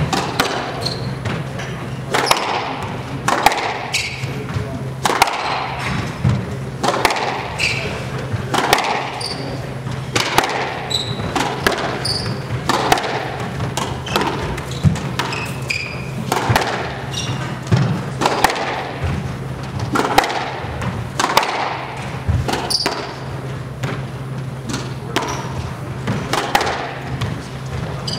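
A squash rally: the rubber ball cracks off the rackets and the walls about once a second, with short high squeaks from the players' shoes on the hardwood floor. A steady low hum runs underneath.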